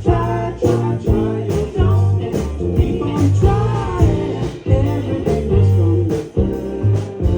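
Live indie rock band playing a song: drums keeping a steady beat under bass and guitar, with a voice singing.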